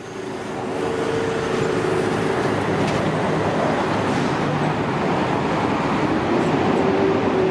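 City street traffic: a steady wash of passing cars with engine hum, fading in over the first second.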